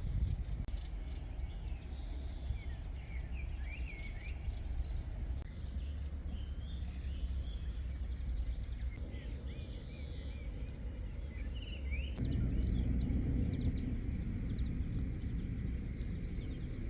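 Small birds chirping intermittently over a steady low rumble of outdoor background noise, which grows louder about twelve seconds in.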